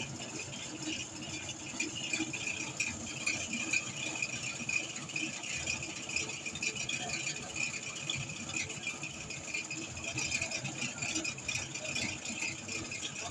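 Motorised grass chopper for goat fodder running steadily, a continuous even mechanical noise without pauses.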